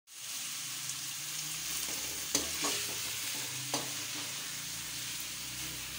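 Sliced onion sizzling as it fries in hot oil in a metal karahi, stirred with a spatula. A few sharp clinks of the spatula against the pan come about two and a half and four seconds in.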